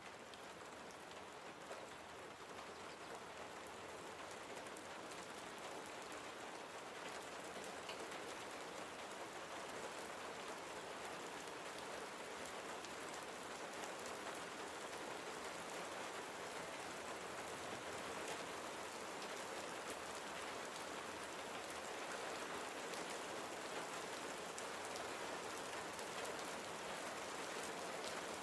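Steady rain falling, a dense even hiss of drops pattering on a surface, growing slightly louder over the stretch.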